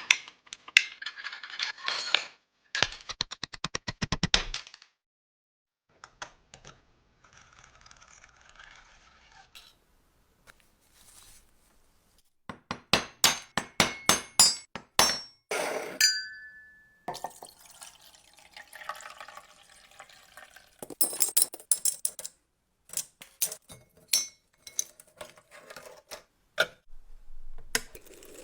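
Small metal parts of a pocket lighter being handled: series of sharp clicks and light metallic clinks, with stretches of soft hiss in between and a brief high tone about two-thirds of the way through.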